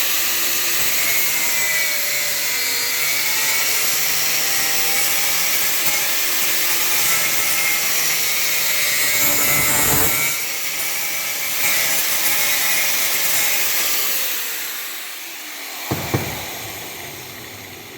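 Power cutting tool running under load as it cuts through the plastic housing of a car's anti-roll bar link, its motor pitch wavering with the load. It winds down about fifteen seconds in, followed by a short sharp knock.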